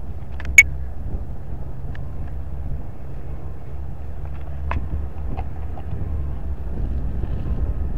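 Steady low outdoor rumble, with one sharp, loud click about half a second in and a couple of faint ticks later.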